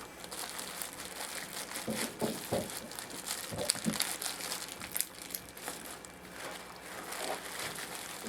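Bubble wrap crinkling and rustling as it is pulled and unwrapped by hand, with irregular small crackles and a few louder knocks in the middle.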